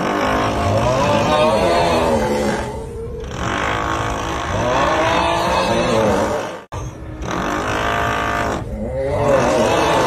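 Looped 'uuuugghhh' snoring meme sound: a drawn-out groaning voice sliding up and down in pitch, repeating about every three seconds, over a steady drill whirring underneath. The sound drops out for an instant about two-thirds of the way in.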